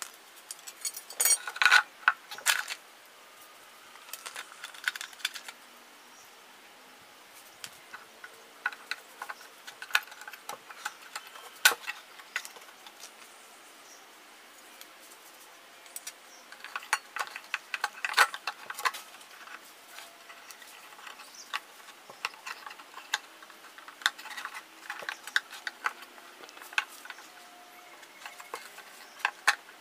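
Small screws and a black metal rigging bracket clinking and rattling as they are handled and fitted against a speaker cabinet, in scattered clusters of clicks.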